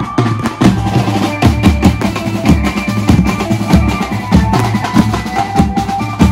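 Banjo party band playing: fast, dense drumming with bass drum and snare strokes under a held electric banjo melody. The music stops abruptly near the end.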